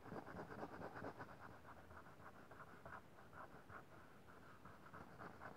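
Black coloured pencil scratching on paper in quick, short shading strokes, several a second, faint.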